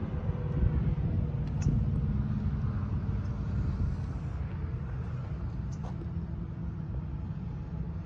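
Motorcycle engine idling: a steady low rumble, slightly louder in the first few seconds.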